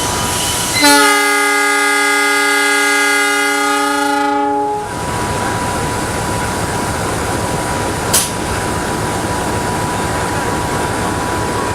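Diesel locomotive's horn sounding one long blast of about four seconds as the Pangrango train departs, over steady train noise, followed by a short sharp knock later on.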